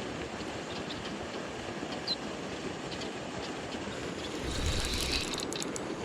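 Steady outdoor background noise with a small click about two seconds in; about four and a half seconds in, a louder scuffling burst with a low thump lasting about a second, as a bass is hooked on the line.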